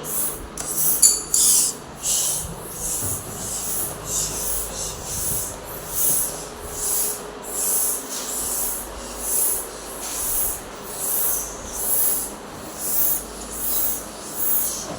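A voice hissing the 'sss' sound of the letter S over and over in short bursts, roughly once a second, as in a phonics drill.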